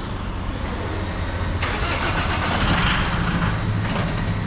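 Iveco 70C17 diesel engine cranked on the starter for about two and a half seconds, starting suddenly about a second and a half in, without running: a start attempt on an engine that stalls and floods, where the mechanic suspects the high-pressure fuel pump's M-Prop pressure-regulating valve.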